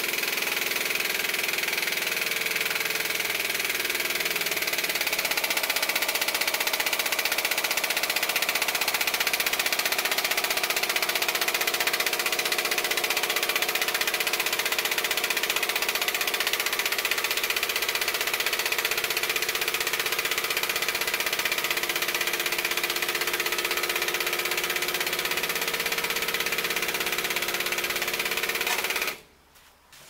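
Air-over-hydraulic hood lift on an Oshkosh concrete mixer truck, worked by the truck's air supply, running steadily as it tilts the heavy hood up. It cuts off near the end, when the hood is fully raised.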